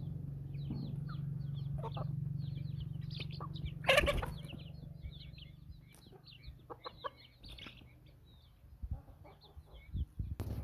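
Chickens clucking while chicks peep in many short, high chirps, with one brief loud flurry about four seconds in. A steady low hum underneath fades out about halfway through.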